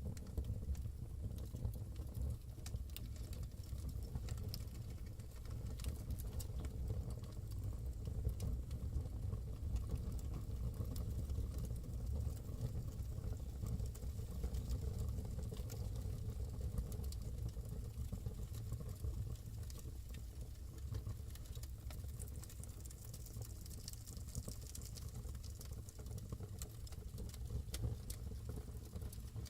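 Fire in a fireplace crackling: frequent small, sharp crackles over a steady low rumble.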